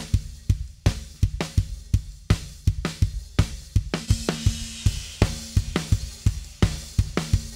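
Recorded drum kit playing a steady groove of kick, snare and hi-hat, processed through Kiive Xtressor compressor plugins on the kick and snare for punch. A cymbal rings out about four seconds in.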